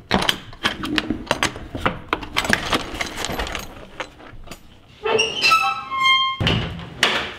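Background music with a string part, over sharp knocks and clatter through the first few seconds, typical of metal panels being pulled off a Humvee's cab and handled.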